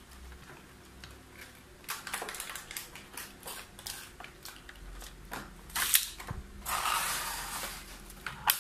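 Small hard-plastic clicks and knocks as a Beyblade spinning top is handled and fitted onto a string launcher, with a sharp click about six seconds in. Near the end comes a rasping whirr of about a second as the launcher's pull-string is drawn out.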